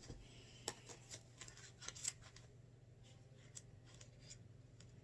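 Paper pages of an oracle card guidebook being leafed through: a scatter of soft rustles and light taps over a faint steady low hum.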